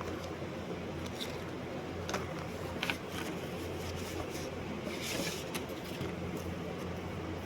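Steady low hum over background noise, with a few light clicks and a brief rustle about five seconds in.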